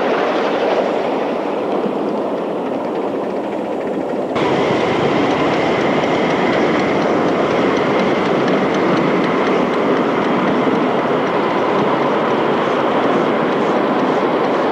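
Ride-on miniature railway train rolling along small-gauge track, a steady rumble of wheels on rail with some clicking over the rail joints. The sound changes abruptly a little over four seconds in, to a brighter, steadier rumble with a faint high steady tone.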